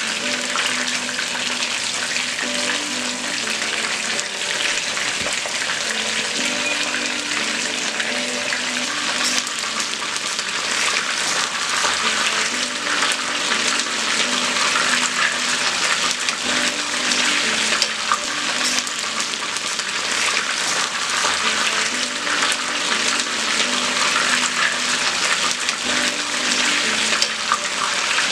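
Chicken pieces shallow-frying in hot oil in a frying pan: a steady, dense sizzle full of fine crackles.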